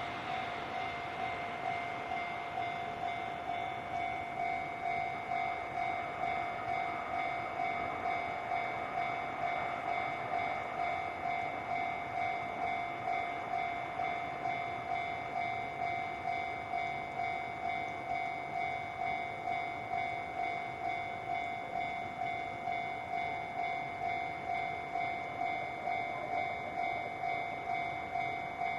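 Japanese railway level-crossing warning alarm ringing steadily: an electronic two-tone ding repeating evenly, the signal that a train is approaching the crossing.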